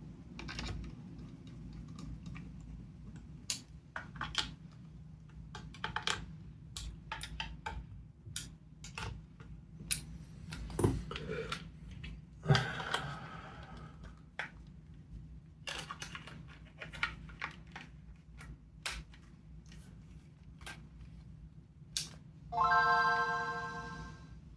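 Small clicks and taps of a screwdriver and plastic handheld case as the case screws of a Game Boy Advance SP are driven back in. Near the end comes a short pitched chime of several steady tones, the console's startup sound as it powers on.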